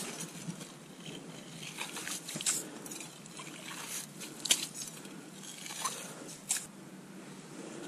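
A metal slotted ice skimmer clearing slush and water from an ice-fishing hole: wet, slushy trickling and squelching, with a handful of light, sharp scrapes and clicks as the scoop knocks against the ice.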